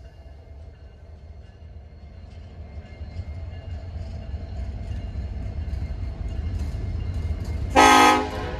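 Diesel freight locomotive rumbling and growing steadily louder as it nears, then one short horn blast near the end.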